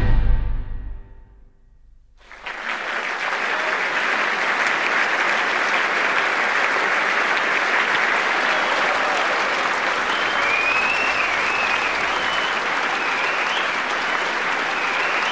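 The last sustained chord of the music dies away, and after a short pause an audience breaks into applause that holds steady.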